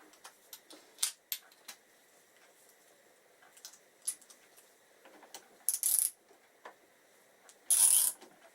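Hand tools and loose bolts clinking as they are handled and set down: scattered light metallic clicks, with two short, louder jangling rattles, one past the middle and one near the end.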